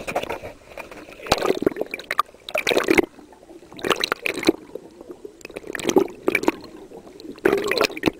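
Water sloshing and splashing in irregular bursts, every second or two.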